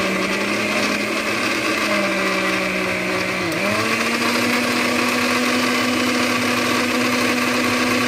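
A 500 W countertop blender with a glass jar runs steadily, blending a thin liquid batter. Its motor pitch dips briefly about three and a half seconds in, then settles slightly higher.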